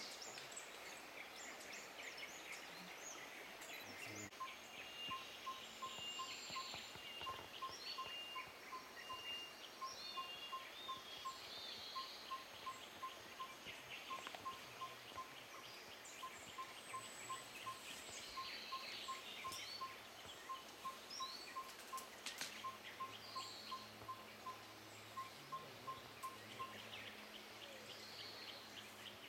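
Rainforest birdsong: one bird repeats a short run of four or five quick pips at the same pitch over and over, with other birds' chirps, whistles and fast trills around it.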